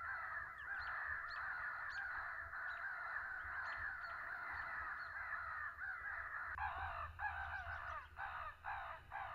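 Many crows cawing at once in a dense, unbroken chorus that breaks into separate caws with short gaps about two-thirds of the way through.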